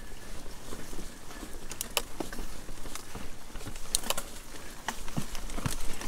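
Mountain bike rolling over rocks and roots: irregular clicks, knocks and rattles from the tyres, chain and bike on the rough trail.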